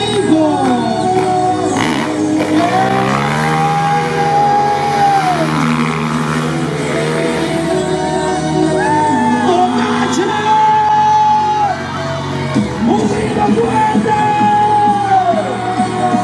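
A song with a sung vocal line over a steady bass: long held notes that bend at their ends.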